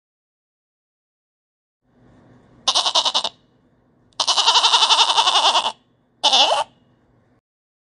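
Goat bleating three times, each bleat wavering with rapid pulses: a short bleat, a long one lasting about a second and a half, then a short one.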